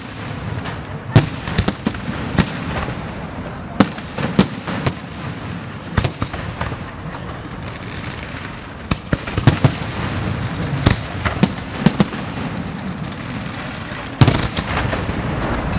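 Fireworks display: aerial shells bursting in an irregular series of sharp bangs over a steady crackling rumble, with a quick cluster of bangs near the end.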